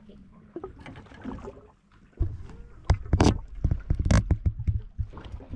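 Irregular knocks and thumps on a fishing boat, several loud ones clustered in the middle, as a just-caught striped bass and gear are handled aboard.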